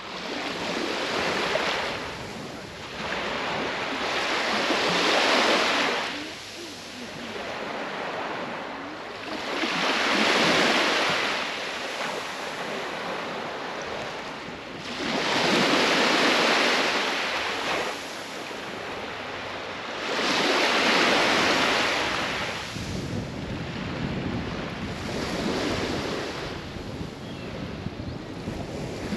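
Small waves breaking and washing up a sandy beach, the hiss swelling and fading about every five seconds.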